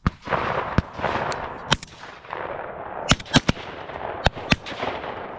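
Shotguns firing at driven pheasants: about eight sharp shots over five seconds, some in quick pairs, over a steady rushing noise.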